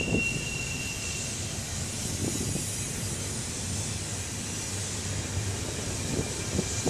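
Double-stack intermodal well cars of a BNSF freight train rolling past: a steady rumble of wheels on rail with a few soft knocks. A thin high steady tone fades out in the first second or so.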